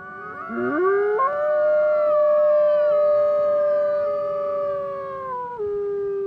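Arctic wolves howling, several howls overlapping. One long howl rises about half a second in, holds a steady pitch for several seconds, then drops to a lower note near the end.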